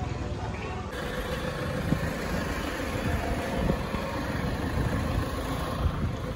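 Motor vehicle engine idling steadily, a low even running sound, while stopped at a closed railway level crossing.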